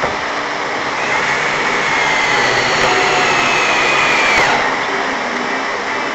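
Power drill motor whining for about three and a half seconds as a screw is driven, its pitch dropping as it stops, over a steady rushing noise.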